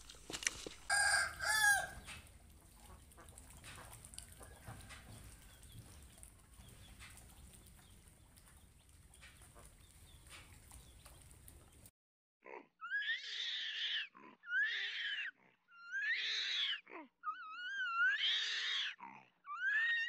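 A farm animal calling loudly, about five harsh, squealing calls in a row, each about a second long with a wavering pitch; they start about halfway through after a stretch of faint background noise.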